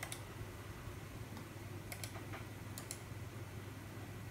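A handful of faint, sharp clicks from computer input (mouse or keys), spaced irregularly, over a low steady hum.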